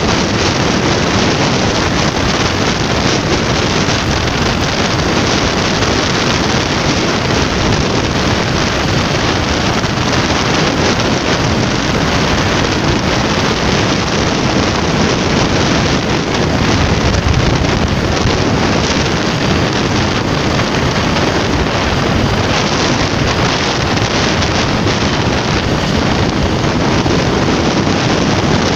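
Steady wind rushing over the microphone of a moving motorcycle, mixed with the bike's running noise.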